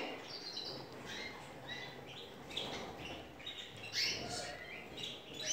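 Canaries giving faint, short, scattered high chirps, a little stronger about four seconds in.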